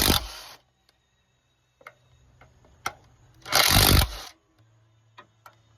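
Two short bursts of tool noise, each under a second, as engine bolts are backed out. A few light clicks come between them.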